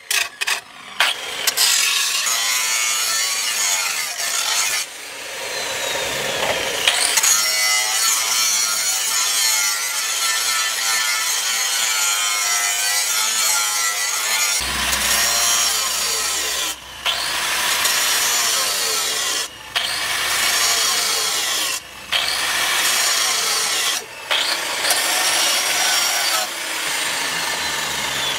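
Angle grinder with an abrasive disc grinding a steel knife blank, a steady high grinding hiss. In the second half it breaks off briefly several times as the disc is lifted and set back on the steel.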